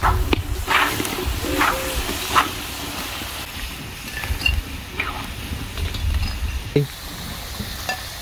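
Potato fries sizzling in hot oil in a wide metal pan over a wood fire, with a slotted spatula scraping and clinking against the pan as the fries are lifted out, several strokes in the first couple of seconds and a few more later. Wind rumbles low on the microphone throughout.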